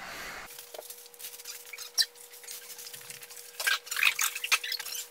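Light clicks, taps and rustles of household objects being handled, with a sharp click about two seconds in and a flurry of taps near the end, over a faint steady hum.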